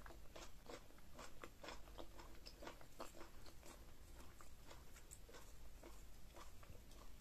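Close-miked chewing of a mouthful of okra and ogbono soup, heard as a string of soft, irregular wet smacks and clicks, a few a second.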